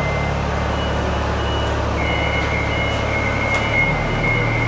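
Construction machine's engine running with a steady low drone and its backup alarm beeping over it in short, evenly spaced beeps. A steady high whine joins about two seconds in.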